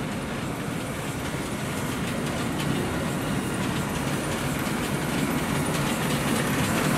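Fablok-built narrow-gauge steam locomotive and its carriages rolling slowly into a station, wheels clicking on the rails. It grows steadily louder as the train approaches.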